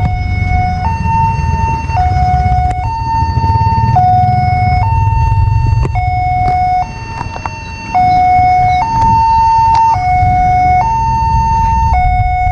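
Railway level-crossing warning siren sounding two steady tones that alternate, low and high, about once a second, warning that a train is approaching with the barrier down. A low rumble runs underneath.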